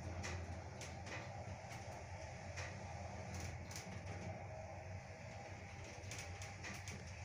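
Shcherbinka (ShLZ) EcoMaks passenger elevator car travelling upward at 1.6 m/s, heard from inside the cab: a steady low hum with a dozen or so irregular light clicks.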